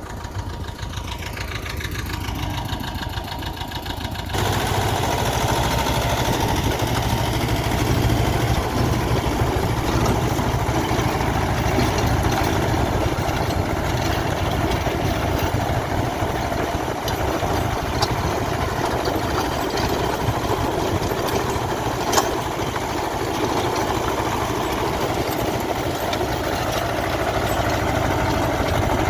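Farm tractor's diesel engine running steadily while driving a rotary tiller through the soil, getting suddenly louder about four seconds in.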